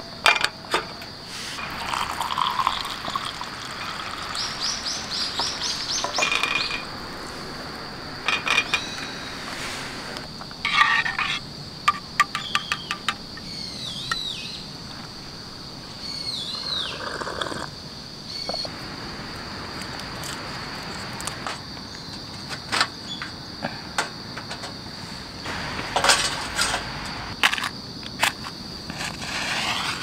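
Steady, high chirring of crickets, with scattered sharp clicks, clinks and knocks of camp gear being handled over it.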